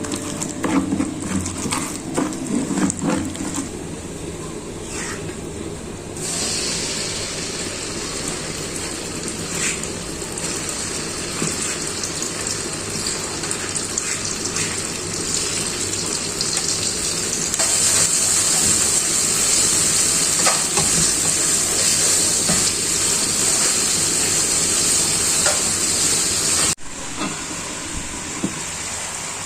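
Food sizzling in a hot pan: a steady high hiss that starts suddenly, grows louder partway through and cuts off abruptly near the end, after a few seconds of light kitchen clicks and knocks.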